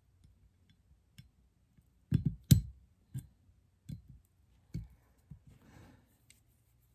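Small metal and polymer parts of a Glock pistol's slide clicking and knocking as they are handled and pressed against a spring during reassembly. The loudest is a quick cluster of three or four knocks about two seconds in, followed by single knocks roughly every second and a short scrape near the end.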